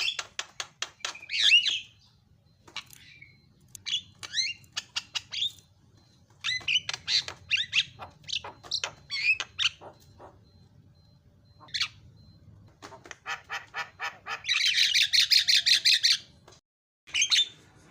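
Javan myna (jalak kebo) in full song: harsh squawks and short whistled notes mixed with rapid trains of dry clicks. Near the end comes a dense, loud rattling burst of chatter.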